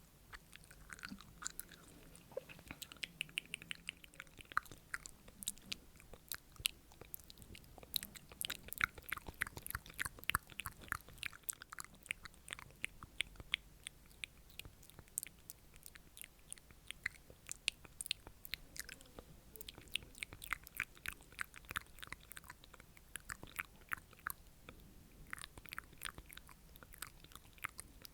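Close-miked wet mouth sounds: rapid, irregular clicks and smacks of the tongue and lips, several a second.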